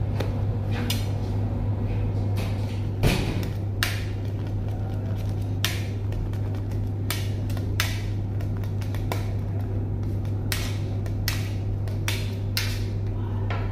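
Metal palette knife clicking and scraping against a stainless steel bowl and the worktop while scooping and spreading buttercream: a series of irregular sharp clicks, the loudest about three seconds in, over a steady low hum.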